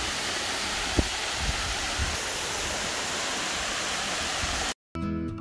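Waterfall and the stream below it rushing over rocks: a steady, even roar of falling water, with one sharp tap about a second in. Near the end the water sound cuts off and acoustic guitar music begins.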